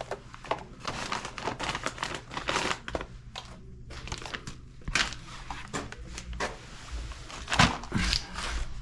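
Irregular rustling and crinkling handling noise, many quick scrapes and crackles close to the microphone, over a steady low hum; the loudest cluster comes near the end.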